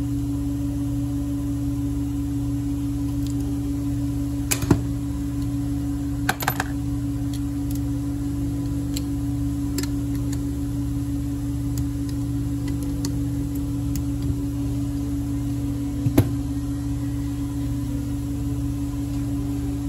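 A steady low hum with a few sharp metal clinks of hand tools against engine parts, the loudest about four and a half, six and a half and sixteen seconds in.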